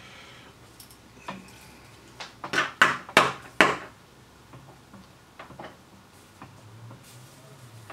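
Sharp taps and clicks from tools being handled at a soldering bench: a quick run of four loud knocks about two and a half to three and a half seconds in, with faint scattered ticks either side.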